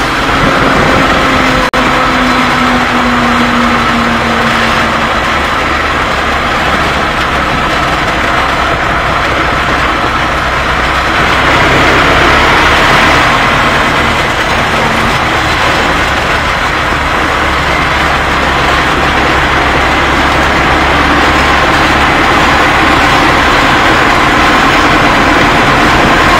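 Pronar 82A tractor's four-cylinder diesel engine running steadily while driving, heard loud from inside the cab.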